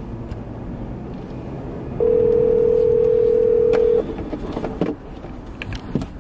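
Telephone ringback tone of an outgoing call: one steady ring lasting about two seconds, starting two seconds in, meaning the called phone is ringing and not yet answered. Low car-cabin road noise runs underneath, with a few light clicks near the end.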